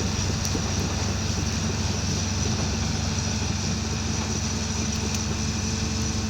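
Excavator engine running steadily at a constant speed, a low even hum.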